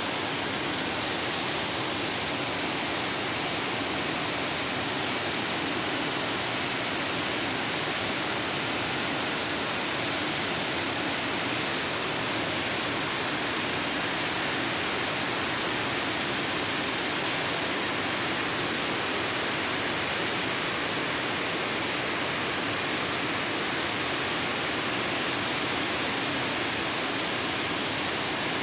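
Steady rushing noise of floodwater pouring through a dam's open spillway gates into a churning torrent, unchanging in level throughout.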